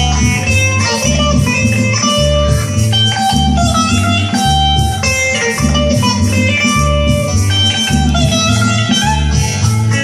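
Electric guitar being played, picking melodic single-note lines over a steady bass line that repeats in an even rhythm.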